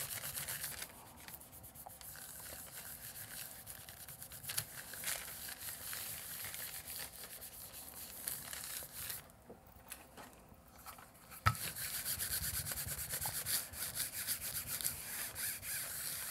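Hands rubbing wax paper laid over an inked gel plate, a soft papery rubbing that presses the paper down to lift the background ink off the plate. About two-thirds of the way through there is a single knock, and then a round hand burnisher is rubbed back and forth over the paper, louder.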